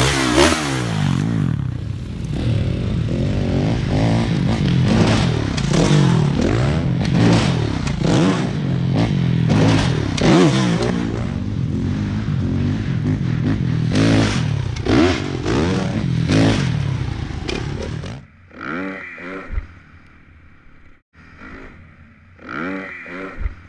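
Dirt bike engine revving hard, its pitch rising and falling again and again with the throttle, with some clatter. About 18 seconds in it cuts abruptly to a much quieter, thinner engine sound with a few short swells.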